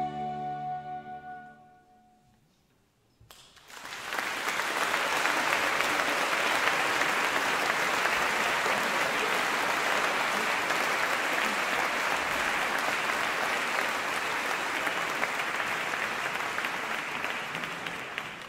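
The choir's last held chord dies away, then after a short hush an audience breaks into steady applause, which fades near the end.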